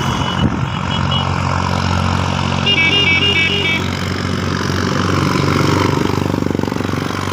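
Tractor diesel engine running steadily, with a throbbing pulse in its note near the end. A short run of high electronic beeps in a stepped pattern sounds about three seconds in.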